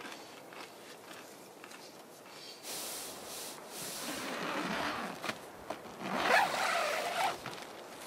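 Tent fabric rustling and rubbing with a zipper-like rasp and small clicks as the hot tent's door is opened from inside. It starts a little under three seconds in, grows loudest about six to seven seconds in, then dies away.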